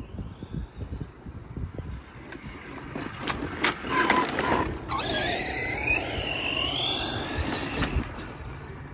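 ARRMA Mojave 4S RC truck driving, its brushless electric motor whining and sliding up and down in pitch with the throttle over the rough noise of its tyres on the ground. It gets louder about three and a half seconds in, and the rising and falling whine is clearest in the second half.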